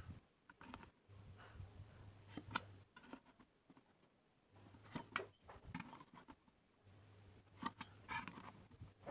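Faint scattered taps and scrapes of a steel try square and ruler being set against galvanized hollow steel tubing, with a marker pen drawing a cut line on the metal. A faint low hum comes and goes underneath.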